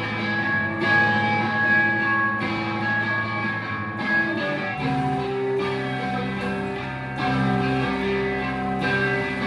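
Live band playing an instrumental passage of a rock song: sustained electric guitar chords over bass, moving to a new chord about five seconds in.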